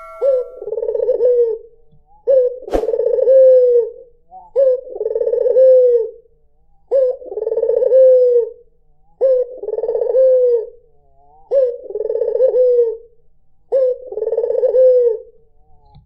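A white ringneck dove (puter) cooing over and over, about one coo every two and a half seconds, each a short note followed by a longer rolling one. One sharp click comes nearly three seconds in.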